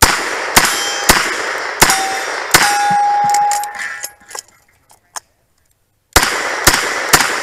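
Revolver fired in quick shots: five shots about half a second apart, a metal target ringing after the fifth, then a reload with a few small clicks, and three more quick shots near the end.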